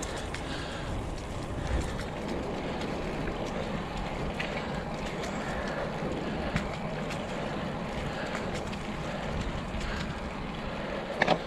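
Road bike riding along a paved trail: steady tyre roar and wind rushing over the microphone, with a few light clicks and a couple of sharper clicks near the end.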